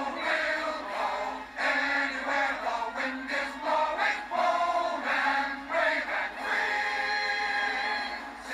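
A chorus of voices sings an ensemble show tune, ending on one long held note near the end.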